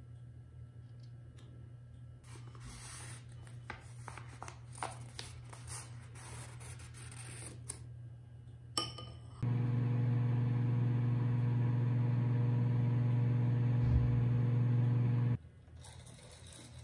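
Light clicks and rubbing of things being handled, then a click and an electric appliance hums steadily for about six seconds before cutting off suddenly.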